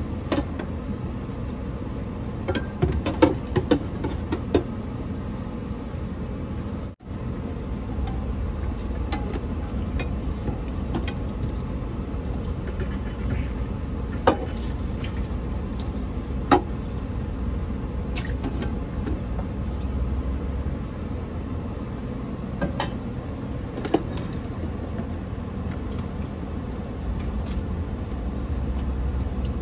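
Dishes being washed at a small stainless-steel sink: tap water running steadily, with a few sharp clinks of utensils and dishes.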